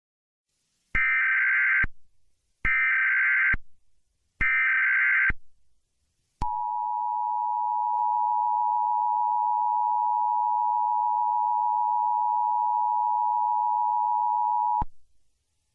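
Emergency Alert System tones: three short bursts of warbling digital data (the SAME header), then the steady two-tone attention signal held for about eight seconds.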